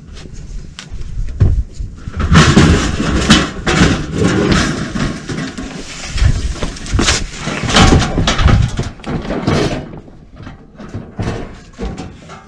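Large tool chest hauled up by a rope and lifted onto a boat's deck: scraping, clattering and repeated knocks and bangs against the hull and deck. The handling noise starts about two seconds in and dies down near the end.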